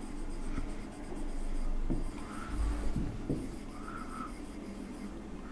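Marker pen writing on a whiteboard: a run of short, faint scratchy strokes as words are written.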